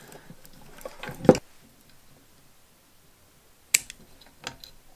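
A few sharp clicks and taps from pliers and wires being handled on a workbench. The loudest comes a little over a second in, with another near four seconds.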